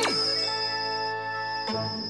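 Cartoon laser-beam sound effect from a small robot: a quick falling zap, then a held synthesized chord with a high steady tone. A lower note joins near the end.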